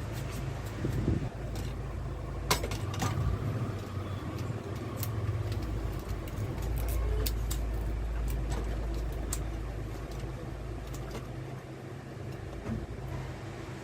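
Scattered light clicks and taps of small laptop parts being handled, over a steady low rumble.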